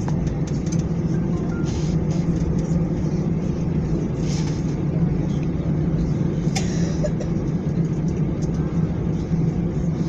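Steady airliner cabin noise while taxiing: the engines run at low power with a constant low hum over a dense rumble, and there are a couple of short clicks about four and six and a half seconds in.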